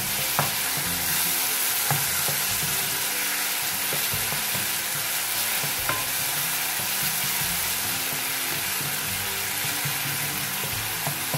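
Chopped onion and tomato sizzling steadily in hot oil in a nonstick pan while a wooden spoon stirs them, with a few light knocks of the spoon against the pan. The tomatoes are being sautéed until they soften and break down.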